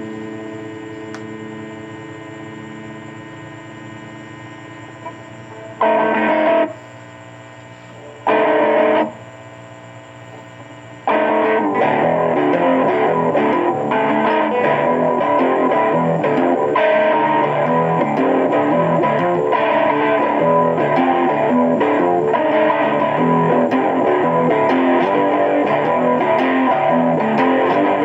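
Electric guitar played through an amplifier: a held chord ringing and slowly fading, two short loud chord stabs about six and eight seconds in, then continuous riffing from about eleven seconds on.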